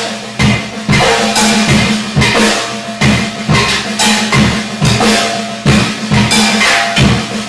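Percussion played to a steady beat: deep thuds alternating with sharper, crashing hits, over a continuous low hum.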